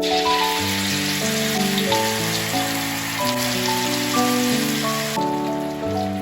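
Food sizzling in hot oil in a pan while being stir-fried, a dense hiss that drops to a much quieter level about five seconds in, with background piano music.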